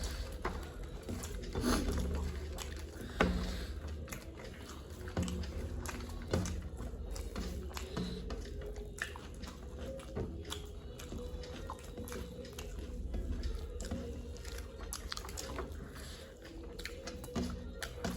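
Close-up eating sounds: chewing and biting into puffed rice, ghugni and a potato chop, with frequent small clicks and knocks scattered throughout.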